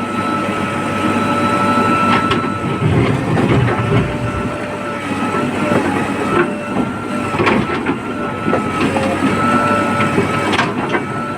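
Heavy diesel earthmoving machinery, a backhoe loader digging and loading mud, running hard with a steady high whine over the engine and a few sharp metallic knocks.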